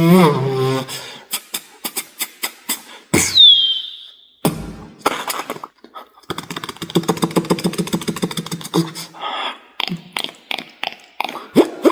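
Human beatboxing, made with the mouth alone: a hummed note dies away, then quick runs of sharp clicks and snare-like hits and a falling whistle-like sweep about three seconds in. In the middle, fast even clicks ride over a steady hummed bass note, thinning to scattered clicks near the end.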